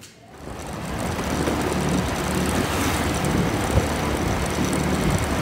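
Motor scooter running while riding along a street, its engine a steady low hum under a loud rush of air and road noise that builds over the first second.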